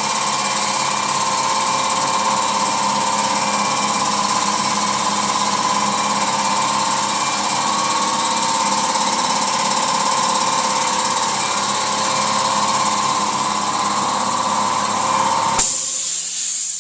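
Spray-painting air equipment running steadily, a machine hum with air hiss, while coats of paint go onto a panel; near the end a sharper hiss sounds for about a second before it cuts off.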